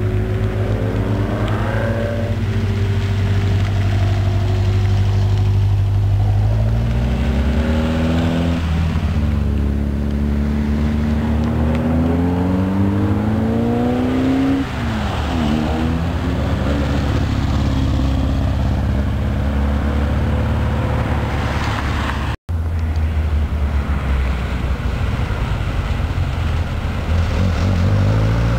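Seven-style lightweight sports cars driving past one after another, their engines' revs climbing and dropping several times as they pull away and change gear, over a steady low engine rumble. A brief dropout about three-quarters of the way through.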